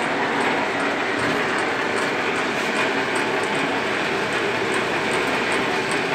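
Batala-made 8 ft heavy-duty V-belt-driven lathe running with its large chuck spinning: a steady mechanical running noise from the drive, with faint high ticks recurring a few times a second.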